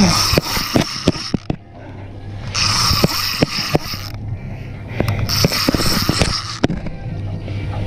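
Heavy conventional fishing reel being cranked in three bursts, each a whirring hiss about a second and a half long, with sharp clicks between them, as line is wound in on a hooked grouper. A low steady hum runs underneath.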